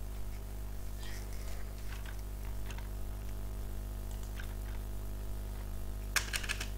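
Computer keyboard keystrokes: a few faint scattered taps, then a quick run of louder keystrokes about six seconds in, over a steady low electrical hum.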